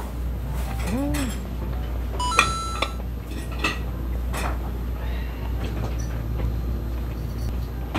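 Ceramic sushi plates clinking and chopsticks tapping, with one loud ringing clink about two and a half seconds in as a plate is set down on the stack, over a steady low hum.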